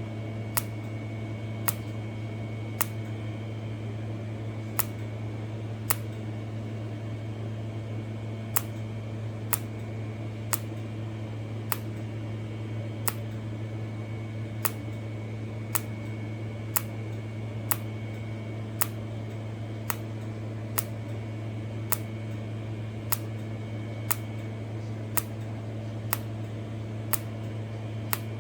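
Micro TIG spot welding of 0.1 mm SUS304 stainless sheet in SPOT mode: each short arc pulse gives a sharp click, roughly once a second with a few longer pauses. Under the clicks runs a steady hum.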